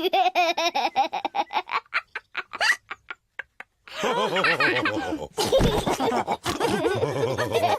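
Cartoon pig characters laughing: quick rhythmic laughter that thins out and stops for about a second, then several voices laughing together about four seconds in.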